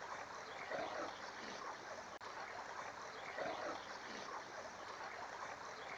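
Faint, steady flow of a small stream.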